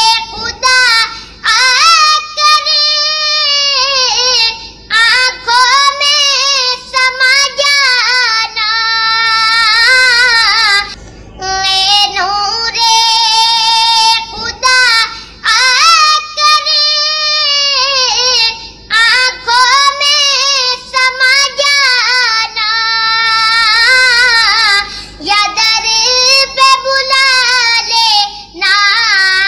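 A young boy singing a naat, an Urdu devotional song in praise of the Prophet, unaccompanied in a high voice. He sings in long, wavering phrases separated by short breaths.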